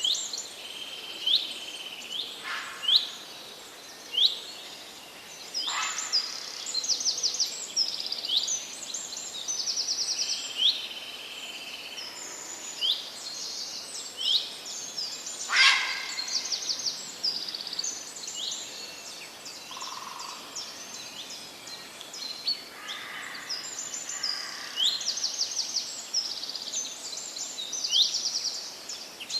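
Several songbirds singing and calling in a forest: overlapping high whistled notes, short trills and quick chirps follow one another without a break, over a faint steady hiss of background noise.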